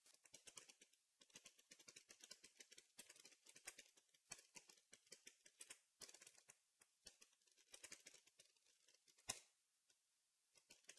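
Faint typing on a Logitech MK295 silent keyboard: a run of soft, irregular key clicks, with one louder keystroke near the end as the Enter key runs the typed command.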